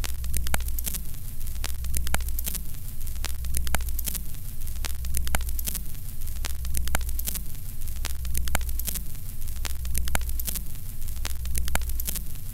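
Crackling static over a steady low hum, with clicks and a sweeping pattern repeating about every second and a half, a looped noise bed.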